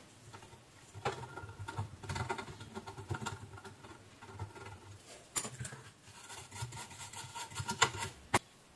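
Bristle brush scrubbing the solder side of a circuit board wet with isopropyl alcohol, cleaning off flux around the desoldered pads. It makes an irregular scratchy brushing with a few sharp ticks, the sharpest near the end.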